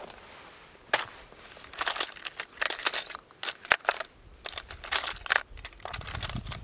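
Clear plastic tackle box opened with a sharp click, then metal fishing lures clinking and rattling against the plastic compartments as fingers sort through them.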